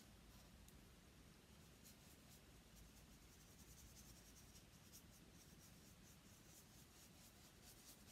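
Faint, light scratching of a small paintbrush dabbing and stroking oil paint onto a gesso-primed plywood board, in a run of soft short strokes.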